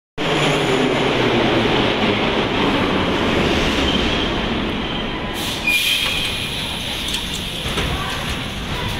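Vintage metro train running along the station platform: a loud, steady rumble that gradually grows quieter, with a brief high-pitched wheel squeal about six seconds in.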